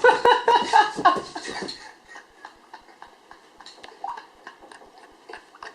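Men's voices shouting excitedly, cutting off about two seconds in, followed by quiet with scattered faint knocks and clicks.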